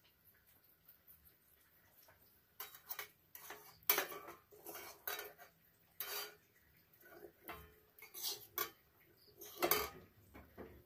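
Metal kitchenware clinking and scraping, a spoon against steel dishes, in a run of irregular knocks that starts a couple of seconds in and is loudest about four seconds in and again near the end.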